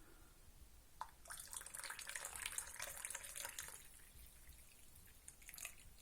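Warm milk being poured into a mug of coffee, a liquid splashing and trickling that starts about a second in and runs for a couple of seconds before tailing off.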